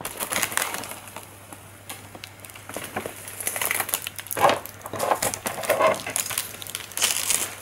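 Clear plastic wrapping film crinkling and rustling in irregular bursts as it is handled around an aquarium lid and its LED light tube.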